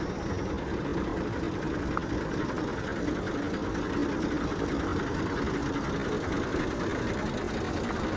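Motor vehicle engines running steadily: a continuous, even rumble of road traffic.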